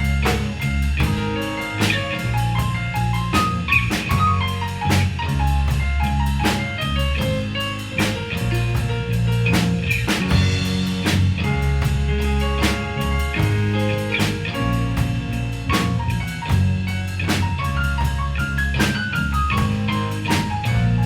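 Band playing an instrumental passage of a song: drum kit keeping a steady beat under a bass line, with a melodic lead line that moves in steps and falls in quick descending runs about four seconds in and again near the end.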